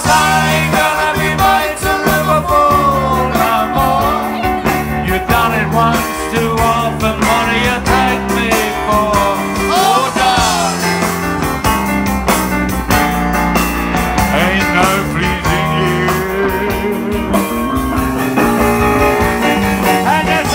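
Live rock and roll band playing through a PA: electric bass guitar, drums and piano, with a man singing.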